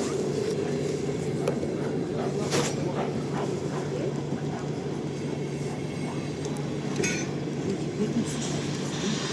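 Departing passenger train: a steady rumbling hum with a few short metallic clinks and knocks.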